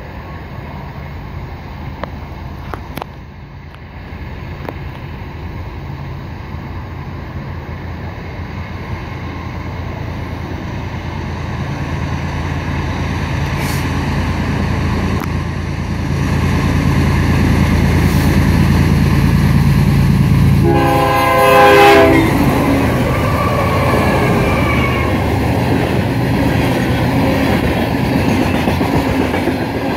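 A loaded grain train approaching and passing: the lead diesel locomotive's engine drone grows steadily louder, and one short horn blast sounds about two-thirds of the way through as it draws level. The loaded covered hopper cars then roll past on the rails.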